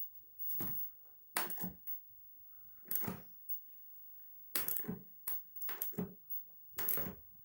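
Irregular handling knocks and clatters, about seven brief ones spaced unevenly.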